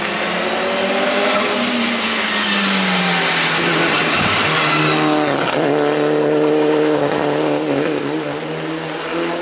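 Mitsubishi Lancer Evolution rally car's turbo four-cylinder engine revving hard through gear changes as it accelerates out of a hairpin, with tyres hissing through spray on the wet road. About five seconds in, another race car is heard at high revs.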